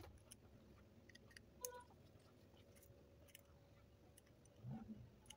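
Near silence, with a few faint clicks and light taps as the small parts of an LED torch head are handled by hand.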